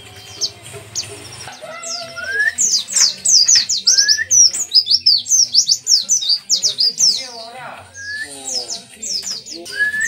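A caged white-eye (pleci) singing a fast, busy song of rapid high chirps that sweep downward, mixed with a few lower rising whistles. It starts about a second and a half in, grows louder and denser, breaks off briefly near the end, then starts again.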